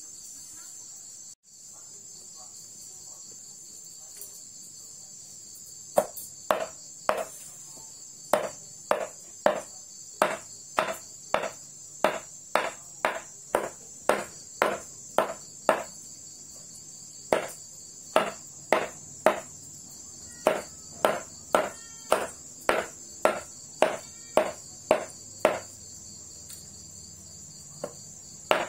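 A large kitchen knife chops raw chicken innards on a round wooden chopping block, starting about six seconds in with sharp, even chops about two a second and a couple of short pauses. Crickets chirp steadily in the background.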